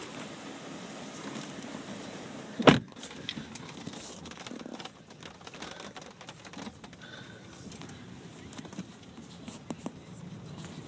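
Phone handling and rustling inside a car cabin, with one sharp, loud thump about three seconds in and a few lighter clicks later.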